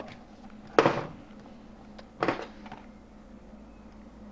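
Two knocks as wiper blade refills are handled on a stainless steel workbench: a sharp one about a second in and a softer one about two seconds in.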